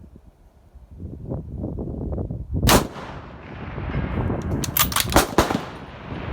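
Rifle shots: one loud shot about two and a half seconds in with a trailing echo, then a quick cluster of sharp cracks around five seconds in.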